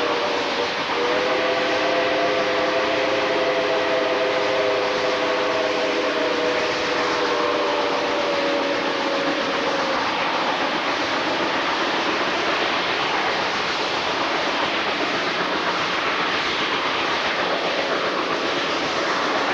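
Steam locomotive's chime whistle blowing one long chord, briefly broken about a second in and stopping about ten seconds in, over the steady rushing noise of the moving train.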